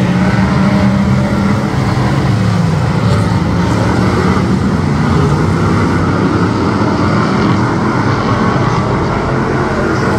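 V8 Hotstox stock car engine running at a fairly steady pitch, dipping slightly in the first couple of seconds.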